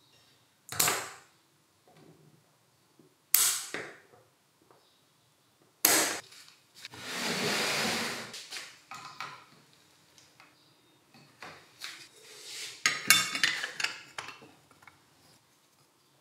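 Hand-work sounds of a power drill being reassembled on a workbench: three sharp knocks, a hiss lasting about a second and a half, then a quick run of small clicks and rattles of plastic and metal parts.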